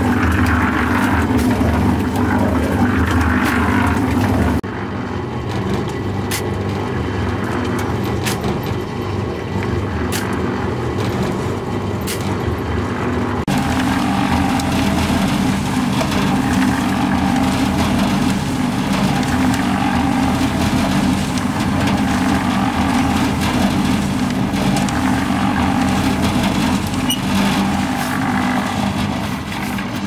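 Small drum concrete mixer running steadily: a motor and gear hum with the rumble of the mix churning in the turning drum. The sound shifts abruptly twice, about 4 and 13 seconds in.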